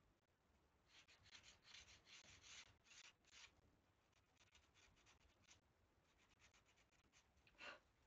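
Faint scratchy scraping of a small blade shaving a thin wooden strip. A quick run of short strokes comes first, then softer ones, and one longer, fuller scrape near the end.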